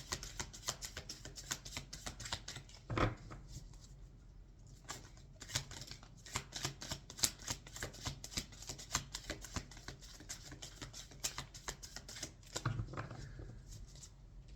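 Tarot cards being shuffled by hand: a rapid, irregular run of crisp card clicks, with a louder knock about three seconds in and another stretch of heavier handling near the end.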